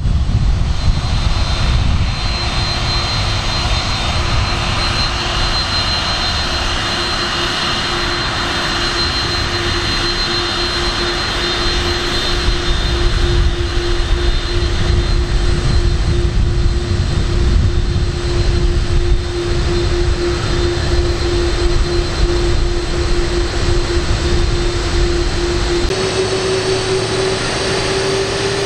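Lockheed C-5M Super Galaxy's four General Electric CF6 turbofans running steadily as the aircraft taxis, a deep rumble under a constant whine. Near the end the whine steps up and rises slightly in pitch.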